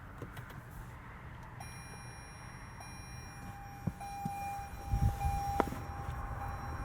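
Car's cabin warning chime: a steady electronic beep tone starting about four seconds in, with a couple of soft low thumps about a second later.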